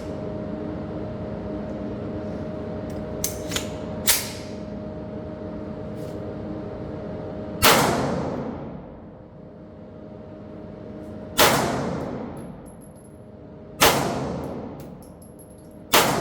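Foxtrot Mike FM9 9mm AR pistol fired four times, single shots a few seconds apart, each a sharp report with a long echoing decay. A few small metallic clicks from the gun being handled come before the first shot.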